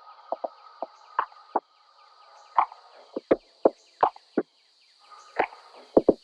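Background music of short, separate pitched notes with a faint steady high tone beneath, growing fuller near the end.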